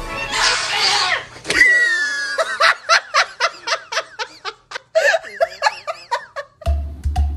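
Hearty human laughter: a loud shrieking burst at the start, then a run of short, high, bouncing laughs at about three a second. Music with a low beat cuts in near the end.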